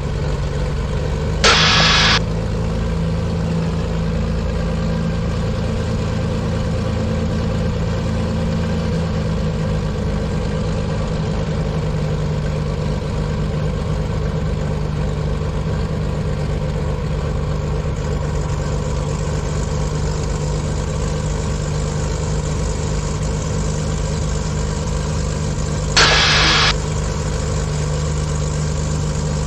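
Cessna T310R's twin turbocharged piston engines running steadily at low taxi power. Two brief hissing bursts come about 1.5 s in and again near the end.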